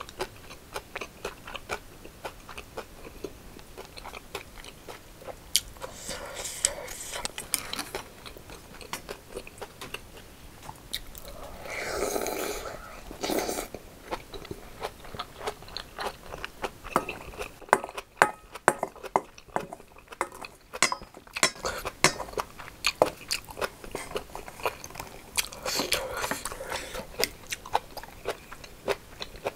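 Close-miked eating: a person chewing mouthfuls of rice and braised saury with kimchi, with many small wet mouth clicks throughout. About halfway through comes a longer, louder slurp of broth from a spoon.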